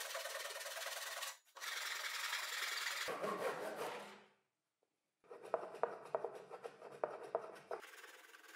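A flexible flush-cut hand saw sawing through a plywood frame post in steady rasping strokes, with a brief break about a second and a half in. It stops for about a second around the four-second mark, then resumes with lighter, scratchier strokes and small ticks.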